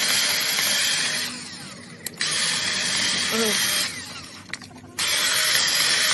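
A power tool running in three bursts of one to two seconds each, stopping for about a second between them.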